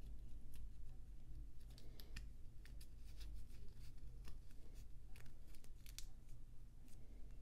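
Faint handling sounds of a Seiko Alpinist SARB017's brown leather strap being fastened on a wrist: scattered small clicks and rustles as the strap is worked through its steel tang buckle and keeper, over a low steady hum.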